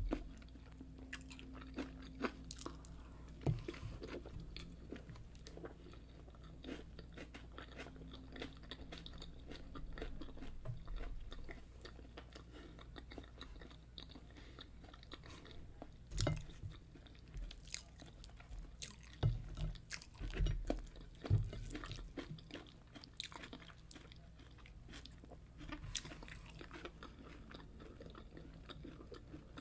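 Close-miked chewing of fried yam and egg sauce: many irregular mouth clicks, with a few louder knocks in the middle.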